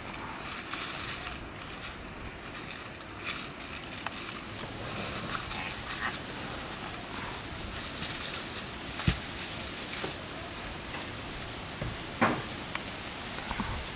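Baby black howler monkeys play-fighting, scuffling and tumbling against a rubber floor mat and rustling the leaves under them, with a few sharper knocks in the second half.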